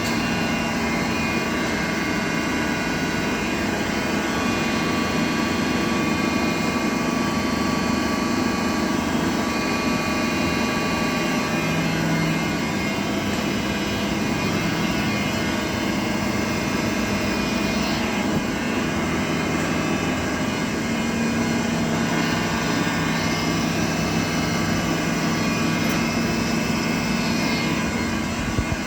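TOS BHU 32A cylindrical grinding machine running: a steady mechanical hum with a constant whine on top.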